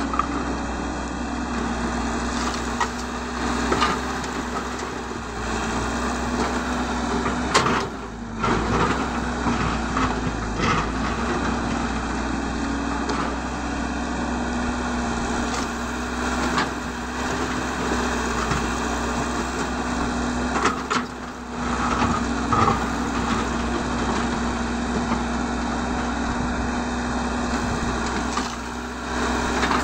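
Cat 312 hydraulic excavator's diesel engine running steadily under working load, with repeated clatter and knocks as the bucket digs into rocky soil and dumps dirt and stones into a dump truck's steel bed.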